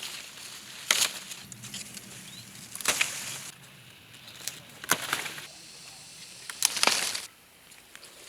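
Leafy pear-tree branches rustling and shaking in four short bursts, about two seconds apart, as pears are pulled down.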